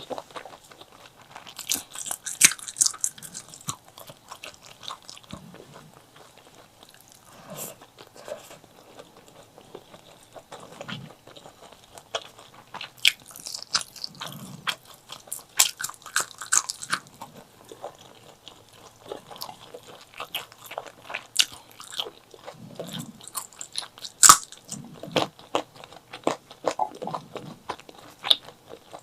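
Close-miked eating of chili and white rice: irregular biting, crunching and wet chewing, with sharp mouth clicks and smacks.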